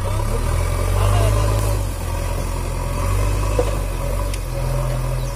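JCB 3DX backhoe loader's diesel engine running under load, its note rising and easing as the machine drives forward and lifts its loaded front bucket. A short knock about three and a half seconds in.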